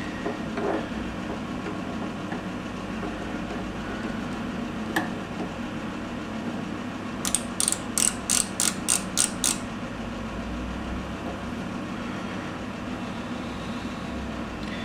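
Micrometer ratchet thimble clicking about eight times in quick succession, some three clicks a second, as it closes on a turned steel shaft to take a measurement. A steady low hum runs underneath, with one single click a few seconds earlier.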